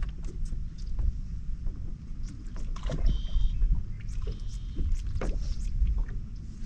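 Wind rumbling on the microphone over water lapping against a fishing boat, with scattered small knocks and a brief high whir about three seconds in.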